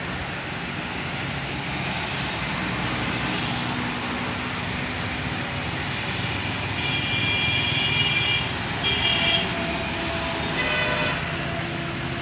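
Road traffic passing close by, with a vehicle horn honking twice about seven seconds in and another short honk near the end.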